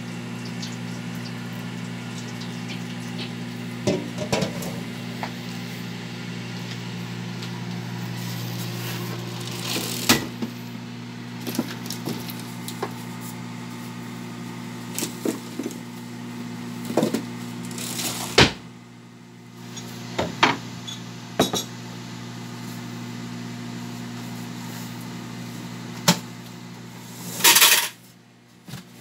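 Microwave oven running with a steady electrical hum. Scattered sharp clinks and knocks of bowls and kitchen utensils sound over it, several of them louder than the hum.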